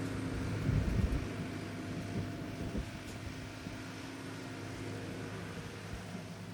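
Excavator engine running steadily with a low, even hum, and a few low thumps about a second in.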